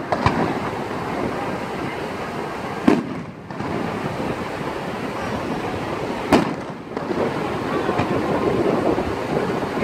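Aerial fireworks shells bursting: a handful of sharp booms a few seconds apart, over a steady background noise.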